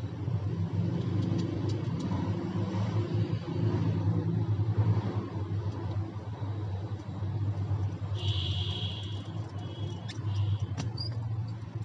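A steady low hum runs throughout, with a few faint clicks and taps near the end from small phone parts and a screwdriver being handled.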